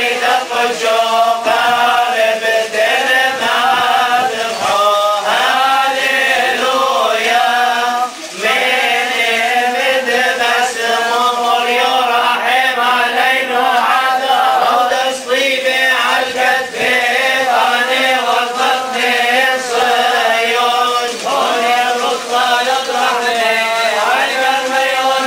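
A group of male clergy chanting a Syriac Orthodox liturgical hymn together, with long held and melismatic notes, breaking off briefly about eight seconds in before going on.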